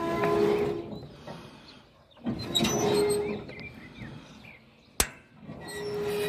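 John Deere 346 square baler's knotter and needle mechanism being worked slowly in short strokes. Metal parts squeal and rub in three bursts of about a second each, with a sharp click about five seconds in.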